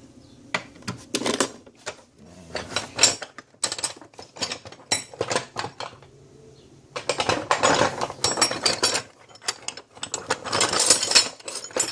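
Small metal hand tool being worked and handled, giving runs of quick ratchet-like clicks and metal clinks in several bursts.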